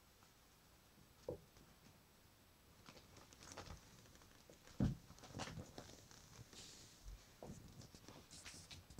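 Kittens playing around a padded bag on a wooden floor: faint, scattered taps, scuffs and rustles, with one sharper thump about five seconds in.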